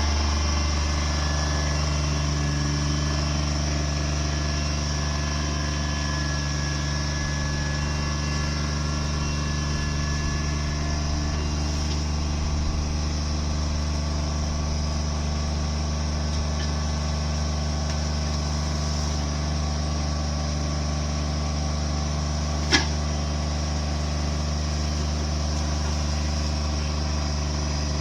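A heavy machine's engine running steadily at an even speed, with a single sharp click about three-quarters of the way through.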